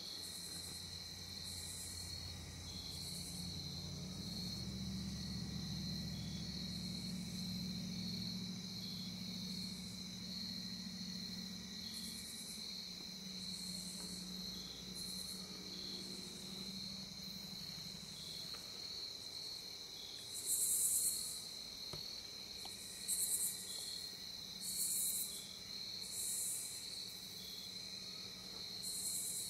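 Evening chorus of crickets and other insects: a steady high trill, with short, higher pulses repeating every second or two that grow louder in the second half.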